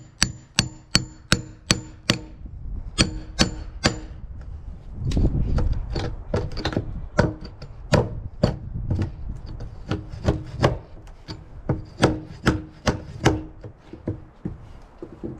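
A hand tool striking repeatedly into a hemlock log, about two or three blows a second, each with a short ring, to dig out a piece of buried metal (a lag bolt) that the mill blade hit. There is a brief scraping, prying stretch partway through.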